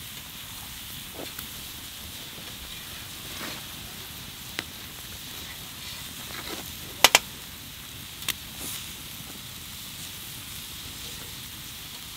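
Meat and onions sizzling on a steel grill grate over an open wood fire, a steady hiss. A few sharp cracks break through it, the loudest a double crack about seven seconds in.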